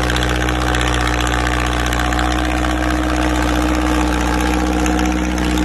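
Farmtrac 6055 tractor's diesel engine idling, a steady even drone that holds the same pitch throughout.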